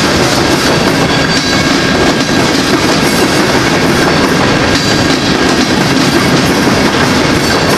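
Long string of empty open-top rock cars on a BNSF freight train rolling past at steady speed: a continuous loud rumble with steel wheels clacking rhythmically on the rails.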